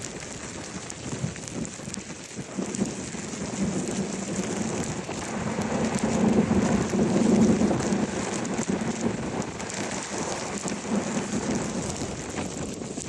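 Steady hiss and low rumble of a car driving through a snowstorm, tyres running on a wet, slushy road, swelling louder about six to eight seconds in.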